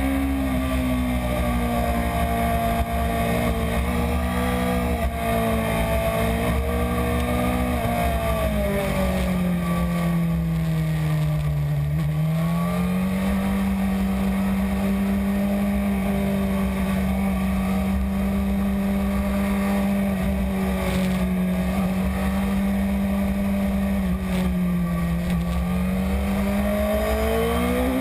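BMW S1000RR's inline-four engine running under way, heard from a camera on the bike with wind rumble underneath. Its pitch drops as the bike slows about a third of the way in, then picks up and holds steady, with another short dip and rise near the end.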